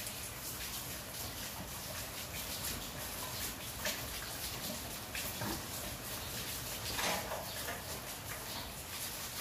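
Steady heavy rain falling on a paved yard, with a few short splashes or knocks, the loudest about seven seconds in.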